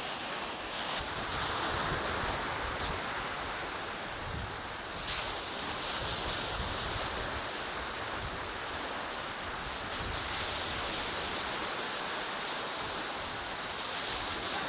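Ocean surf washing onto a sandy beach, a steady rushing noise, with wind gusting on the camcorder microphone.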